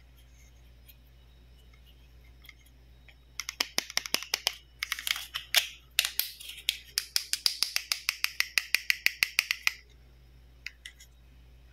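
Plastic toy stethoscope being handled, giving a long run of sharp plastic clicks, at times scraping, then an even series of about five or six clicks a second that stops suddenly.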